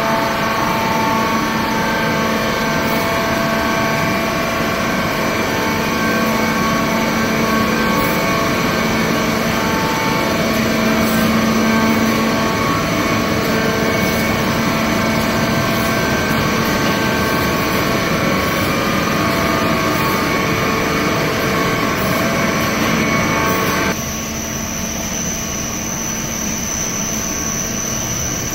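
Soda-cracker production line machinery running: a steady, loud hum of conveyor drives, motors and fans, with several constant whining tones. Near the end the sound cuts abruptly to a slightly quieter run of similar machine noise.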